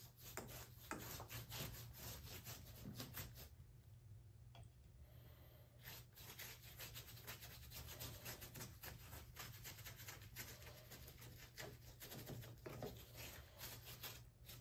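Faint, scratchy rubbing strokes of a stain applicator scrubbed against rough, dry plaster rock casting, repeated in quick runs with a short pause a few seconds in.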